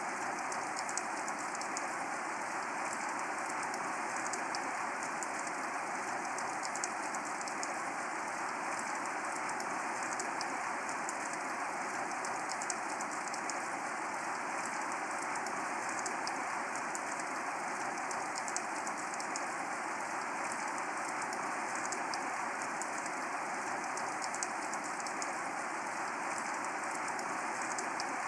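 Steady rain falling, an even hiss with a dense scatter of small drop hits and no thunder.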